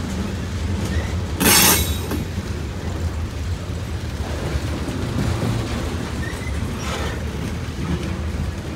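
CSX freight train of covered hopper cars crawling past: a steady low rumble of steel wheels on the rails. A sharp half-second burst of noise comes about one and a half seconds in, and a fainter one about seven seconds in.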